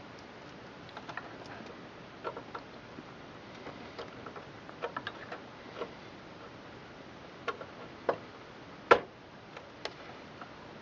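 Irregular clicks and light taps of hard plastic and metal PC case parts being handled, with a louder knock about nine seconds in.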